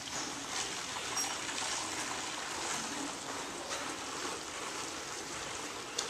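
Milk trickling in a steady stream as it is poured from a small metal jug through a plastic funnel.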